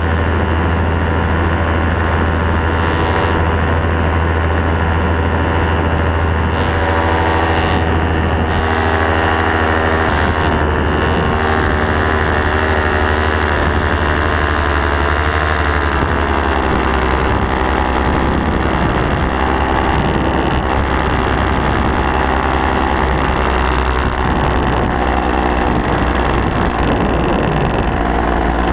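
Paramotor's two-stroke engine and propeller running steadily in flight, heard close up from the pilot's harness. The engine note shifts slightly about ten and again about sixteen seconds in, with wind on the microphone.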